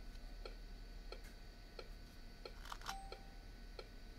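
Faint, regular ticking, about three ticks a second, over quiet room tone, with a brief faint tone that drops in pitch about three seconds in.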